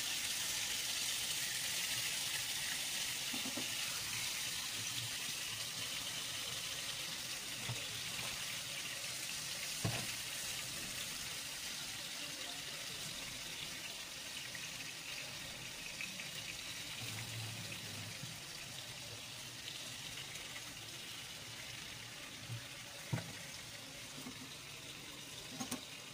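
Longganisa sausages sizzling in hot oil in a frying pan: a steady hiss that slowly dies down, with a few light knocks.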